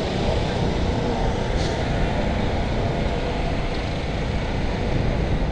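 Steady wind rumble buffeting a helmet-mounted camera microphone as the bicycle rolls along.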